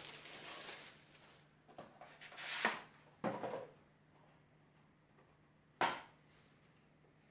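A software retail box being opened and its contents taken out and handled, making rustling and handling noises in bursts. There is a single sharp click about six seconds in.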